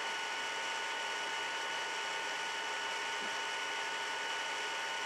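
Steady background hiss with a few faint, constant high-pitched whine tones: the electrical noise floor of the recording, with no knocks or distinct events.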